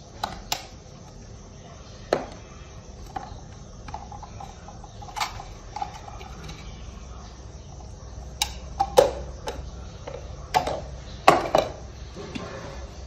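Kitchen clatter as seasonings go onto raw fish in a metal pot: scattered clicks and clinks of spice containers and utensils, with the loudest knocks about nine and eleven seconds in.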